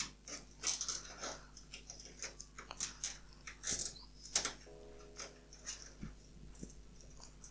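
Nylon cable ties being pulled tight around PC power and data cables, giving quiet, irregular ratcheting clicks along with the small rustle of the cables being handled.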